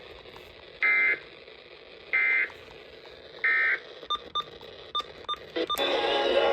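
Emergency Alert System end-of-message signal: three short bursts of warbling digital data tones about 1.3 s apart, marking the end of the relayed alert. A few faint short blips follow, and near the end a louder, fuller sound starts.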